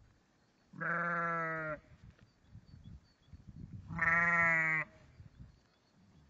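Sheep bleating: two long bleats, each about a second, the second one about three seconds after the first.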